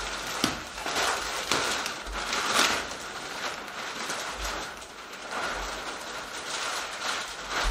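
Clear plastic wrapping on a wool carpet roll crinkling and rustling as the roll is unrolled across the floor, in irregular crackles.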